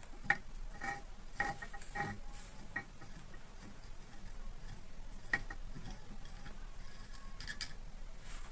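Scattered light metallic clicks and ticks from a box spanner and its rod turning a nut on the end cover of a cooler fan motor. They are denser in the first few seconds, with a sharper click a little past the middle.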